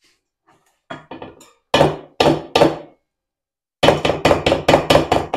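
A spoon and the chopper blade knocking hard against a bowl as minced meat is knocked off them. There are three knocks about two seconds in, then a quick run of about eight knocks near the end.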